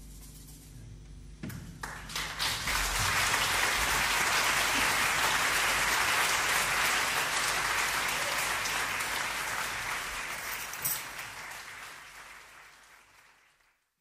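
The last notes of the jazz quartet's piano, guitar, double bass and drums die away, and audience applause breaks out about a second and a half in. The clapping swells, holds, then fades out near the end.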